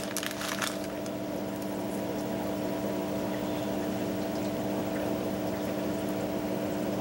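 A steady low hum of several held tones from a running machine, with short crinkles and clicks in the first second as seeds are shaken out of a small plastic bag onto a paper towel.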